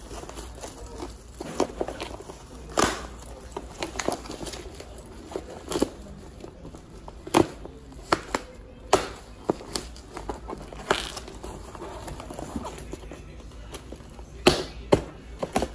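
Bubble wrap and cardboard packaging crinkling and crackling as a parcel is cut and pulled open with a small knife, with irregular sharp clicks and snaps, the loudest a few seconds apart.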